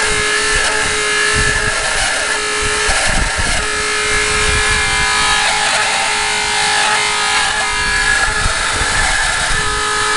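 Walrus TQI 1500 water booster pump running with a loud, abnormal noise: a steady mechanical whine made of several held tones over a rough, rattling rumble.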